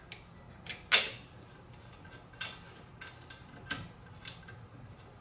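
Metal clicks and clinks of a brake caliper, pads and hand tools being handled as the caliper is fitted back over the new pads: a string of about seven sharp clicks, the loudest about a second in.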